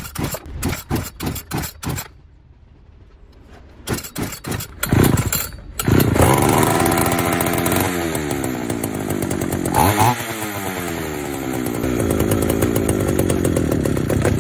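Pioneer P41 66 cc two-stroke chainsaw engine on its first start after a carburetor rebuild. It pops and sputters in two short runs while being pulled over, catches about six seconds in and keeps running. Its pitch sweeps down and back up twice with the throttle, then holds a steady fast run.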